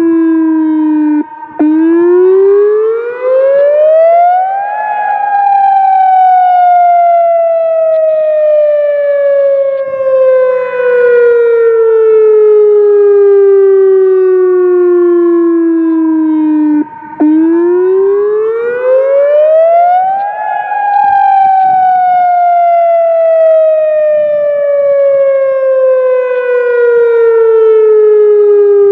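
ATI HPSS-32 electronic outdoor warning siren sounding a wail during its monthly test: the tone climbs quickly for about three seconds, then slides slowly down for about twelve, twice over, with a brief break at the bottom of each cycle.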